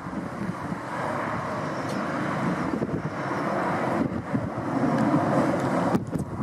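Jet engines of a Boeing 737 MAX, CFM LEAP-1B turbofans, running as a steady roar that grows louder and then drops away near the end, with storm wind buffeting the microphone.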